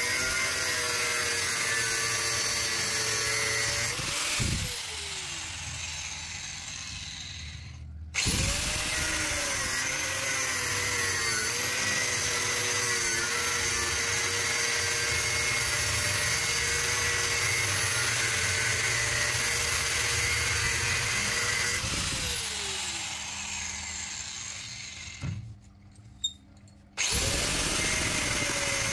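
Angle grinder with a thin cutting disc cutting through the steel shell of an air-conditioner compressor, with a steady motor whine over the grind. Twice it is let off and winds down, then starts back up: once about four seconds in, and again past twenty seconds.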